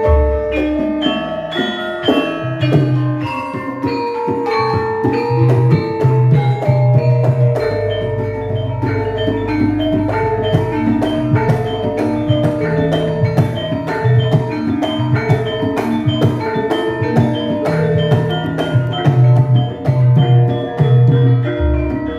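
Javanese gamelan ensemble playing a gending: bronze metallophones and gong-chimes ring out layered melody notes over a low sustained tone, with drum beats. A deep low stroke sounds at the start and again near the end.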